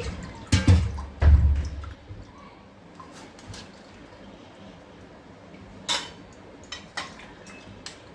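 Split lentils (tur and moong dal) being washed by hand in a vessel of water: two loud sloshes in the first two seconds, then quieter, with a few sharp knocks of the vessel later on.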